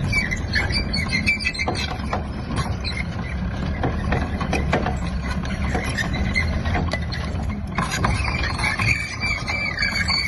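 Well-drilling rig running: a steady low engine drone under repeated high squeals and creaks from the working drill, with scattered sharp clicks.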